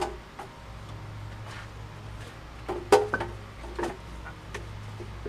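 A few light knocks and clinks of small hard objects being handled, the loudest about three seconds in with a couple more close after it, over a low steady hum.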